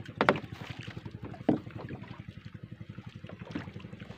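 Small boat engine idling with a steady low pulsing, about ten beats a second, with two sharp knocks near the start and about a second and a half in.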